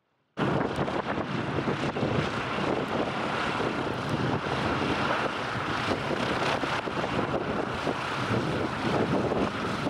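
Vought F4U Corsair's Pratt & Whitney R-2800 radial engine running as the fighter taxis toward the microphone, a steady, loud rumble mixed with wind noise on the microphone. It comes in suddenly just after the start.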